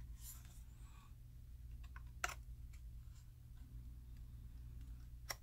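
Surgical knife blade prying at the seam of a plastic hard-drive enclosure. There is a faint scrape near the start, then a few small ticks and two sharp clicks, one a little past the middle and one near the end.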